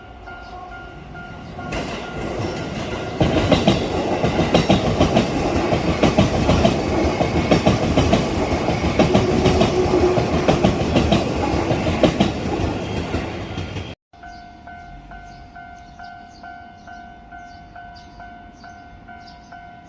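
Level-crossing warning bell ringing with a steady repeated ding, then a train passing over the crossing, its wheels clattering loudly over the rails for about ten seconds. The train sound cuts off abruptly about two-thirds of the way in, and the crossing bell is ringing again.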